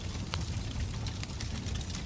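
Wood fire crackling in a fireplace: scattered small snaps and a sharper pop about a third of a second in, over a steady low rumble of the flames.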